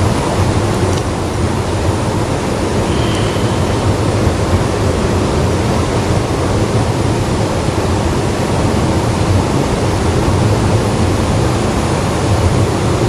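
Steady rush of water flowing through a concrete drainage ditch, an even noise without a break.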